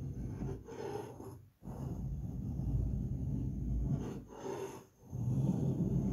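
Snap-off utility knife blade scraping at matt emulsion paint on a plasterboard wall, rasping against the surface in about four strokes with short breaks between them.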